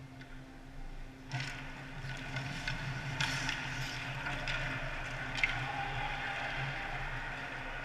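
Ice hockey play heard at rink level: skate blades scraping and carving on the ice, with a few sharp clacks of sticks and puck starting about a second and a half in. A steady low arena hum runs underneath.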